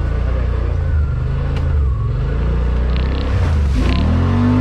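Side-by-side UTV engine running steadily as the vehicle drives, its pitch rising near the end as it speeds up.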